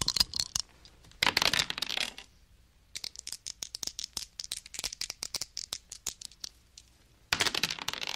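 Dice being shaken in a cup, rattling in quick bursts: one at the start, another about a second in, a slower stretch of separate clicks in the middle, and a last burst near the end that stops suddenly.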